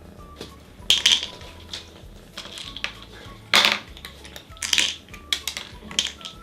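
Small dishes clattering: a handful of sharp clinks and knocks, the loudest about a second in and midway.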